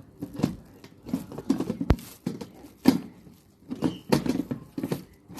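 Irregular knocks and clatters of hard kitchen items being handled, with one sharper knock about two seconds in.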